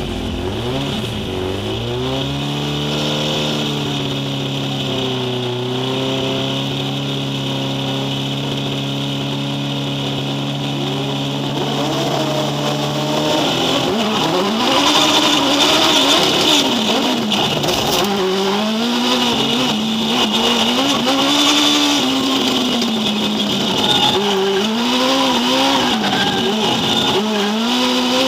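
Drift car engine heard from inside the cockpit: blipped, then held at steady high revs at the start line for about ten seconds. About halfway through it launches, and the revs rise and fall repeatedly as the car accelerates and drifts.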